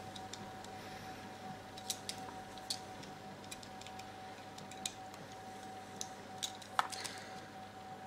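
Faint scattered clicks and light scrapes of a sharp knife scoring around a cable's plastic insulation, about half a dozen small ticks, over a faint steady hum.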